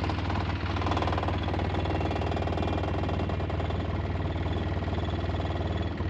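Vehicle engine running steadily at low speed: a low rumble with a fast, even pulse.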